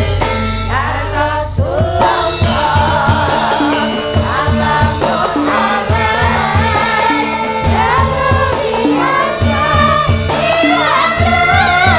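Javanese gamelan music with a group of female sinden singing together in a wavering melody. Bonang kettle gongs and an even low beat play underneath.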